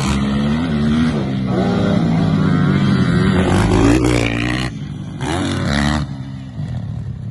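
Motocross dirt bike engine revving hard, its pitch rising and falling as the bike runs through the gears. The level then drops, and a second short burst of revs comes near the end.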